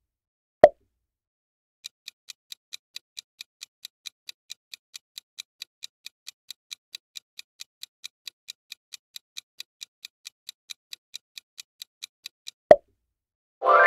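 Quiz countdown-timer sound effect: an even clock ticking, about three and a half ticks a second for roughly ten seconds. It is framed by a short pop just under a second in and another pop near the end, which are the loudest sounds. A bright chime starts right at the close.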